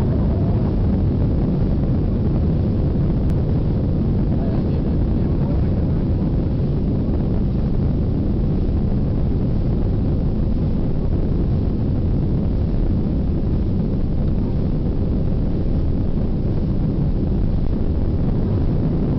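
Jet airliner on its takeoff roll heard from inside the cabin: the engines at takeoff thrust and the rumble of the wheels on the wet runway make one steady, heavy, unbroken noise.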